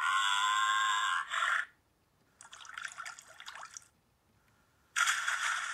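A pitched animal call of an ox, lasting about a second and a half. After it come crackling, bubbling water sounds, and then a louder rush of water near the end.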